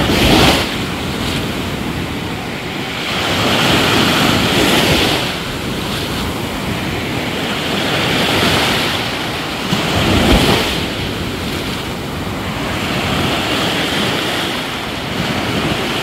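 Small surf waves breaking and washing up a sandy beach, the rush of water swelling and easing every few seconds.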